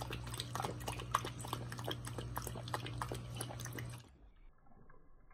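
Corgi puppy lapping milk from a ceramic bowl: rapid wet tongue clicks and slurps, several a second, over a low steady hum. About four seconds in the sound drops abruptly to something much quieter and duller.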